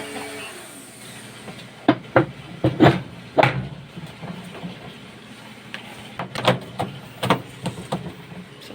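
Irregular knocks and clatter of hard washing-machine parts being handled and struck during disassembly for cleaning, a close cluster of them about two to three and a half seconds in and more scattered ones later.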